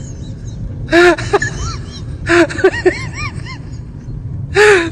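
A person talking in short spells of speech over a steady low rumble.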